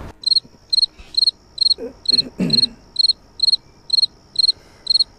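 Stock cricket-chirping sound effect, short high chirps repeating evenly about twice a second over a thin steady high trill. It is the comic cue for an awkward silence.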